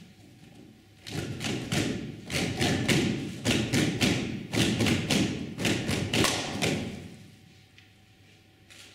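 Many performers beating their hands on the stage floor together: a dense, uneven patter of thuds that starts about a second in, swells, and dies away about seven seconds in.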